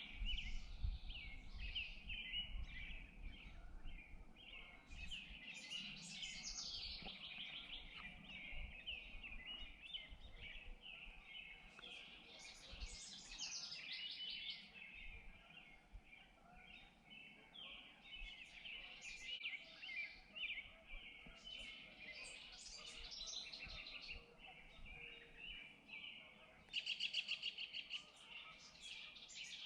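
Many small songbirds chirping and singing over one another, with one louder, rapid trill near the end. A low rumble sits under the first couple of seconds.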